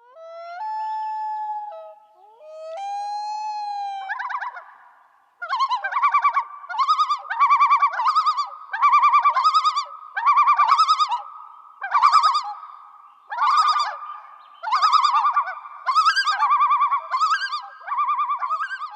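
Loon calling: two long wailing notes, then from about five seconds in a long series of rapidly quavering tremolo phrases, each about a second apart.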